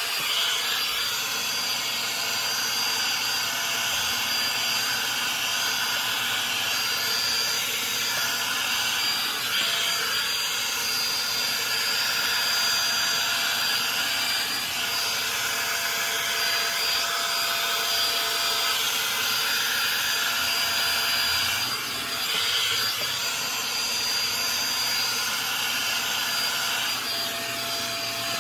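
Revlon One-Step Volumizer hot-air brush running: a steady rush of blown air with a thin high motor whine, held at an even level.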